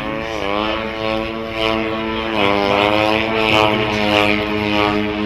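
Radio-controlled aerobatic model plane's engine and propeller running in flight. The pitch rises about half a second in and drops a little past two seconds in as the throttle changes, over a steady propeller hiss.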